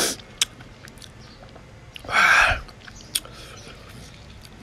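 Mouth noises from a man chewing: wet clicks and lip smacks, and one short, loud, noisy breath about two seconds in.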